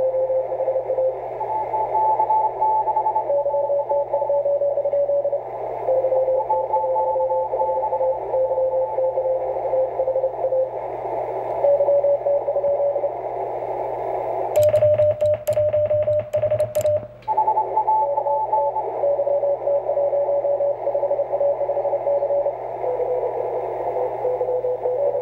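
Morse code (CW) signals on the 20-metre band from a Yaesu HF transceiver's speaker: several stations keying at different pitches over steady band hiss, as in a pileup. About fifteen seconds in, a rapid run of sharp clicks over one steady tone lasts some two seconds, then the keyed signals go on.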